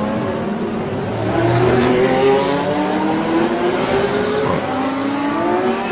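Several sports car engines accelerating together, their overlapping notes rising steadily in pitch as the cars pull away.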